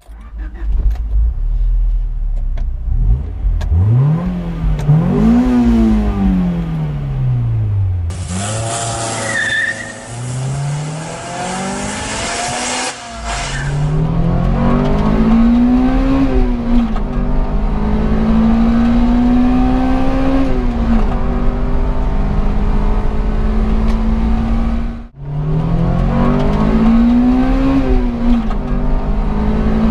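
Honda CRX VTi's 1.6-litre four-cylinder engine, heard from inside the cabin, revving hard under full-throttle acceleration. Its pitch climbs through each gear and drops at every upshift, with a brief break about 25 seconds in.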